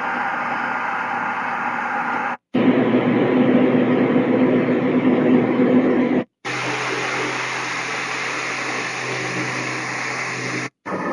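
Housbay white noise machine playing steady noise tracks through its small 5-watt speaker. It cuts out for a moment about every four seconds as it steps to the next sound, so three different hiss textures follow one another.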